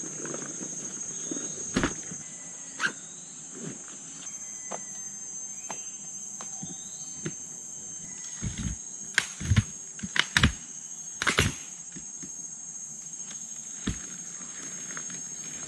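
Knocks and rattles of an iRG Campers rooftop tent being unpacked on a car roof, with a loud cluster of sharp knocks near the middle. Behind them, a steady high insect drone and a few bird chirps.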